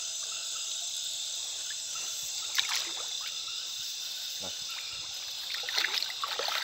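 Steady high-pitched chorus of night insects, with splashing and sloshing of shallow water as a hand reaches into it, sharpest about two and a half seconds in and again near the end.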